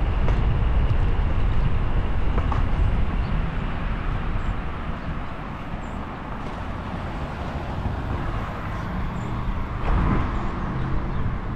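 Steady rush and low rumble of wind and rolling tyres on a moving bicycle, easing a little in the middle and swelling again near the end.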